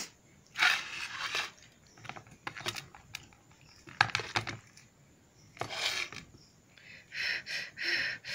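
Fingers mixing rice and dal on a steel plate: irregular bursts of squishing and scraping clicks.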